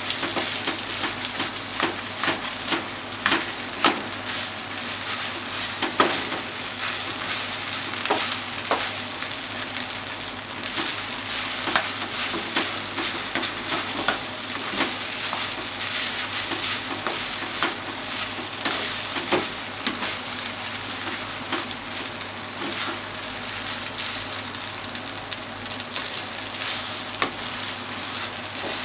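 Chicken rice sizzling in a frying pan as it is stir-fried, with a spatula scraping and tapping against the pan in frequent short strokes over a steady sizzle.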